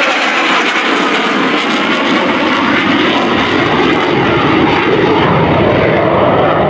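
Jet noise from an F/A-18 Super Hornet's two GE F414 turbofan engines as the fighter banks hard overhead: a loud, steady rushing that grows deeper and fuller from about halfway through.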